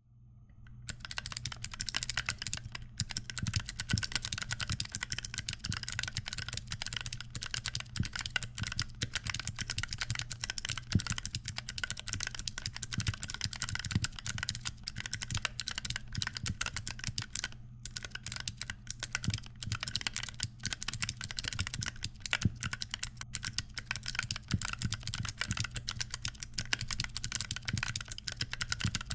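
Steady, fast typing on a custom mechanical keyboard with Pandaristotle switches (Panda housings, Aristotle stems) and DSA-profile keycaps: a continuous stream of keystroke clacks that starts about a second in and breaks off briefly once midway. A steady low hum sits underneath.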